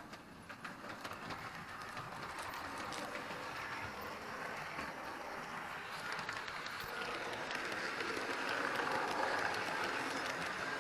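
Bachmann OO gauge model of a Virgin Class 211 train running along the track. Its whirring run is dotted with wheel clicks at the rail joints, and it grows steadily louder as it approaches and passes close by.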